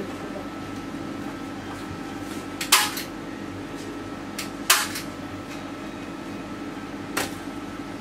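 Three short strokes of oil paint laid onto a stretched canvas, each a brief loud swish a fraction of a second long, about two seconds apart. A steady low hum runs underneath.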